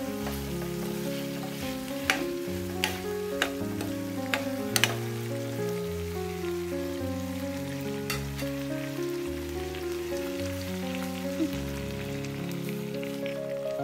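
Chicken and chillies sizzling in an aluminium frying pan, with a metal spoon clinking against the pan several times during stirring, mostly in the first five seconds and once more at about eight seconds. Background music with slow, held notes plays underneath.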